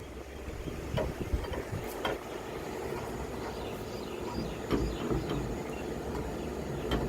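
Scattered clicks and light knocks of a new deadbolt lock's parts being handled and fitted into a door, over a steady low rumble.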